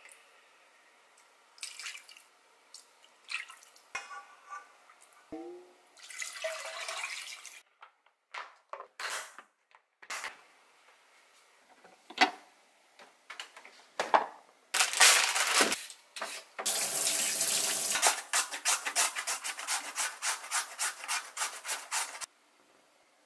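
Soy marinade ladled over pork, splashing and dripping back into a steel bowl, then clicks and knocks of a glass container and its snap-lock lid. Near the end a carrot is shredded on a hand julienne slicer in quick strokes, about four or five a second, which is the loudest part and stops suddenly.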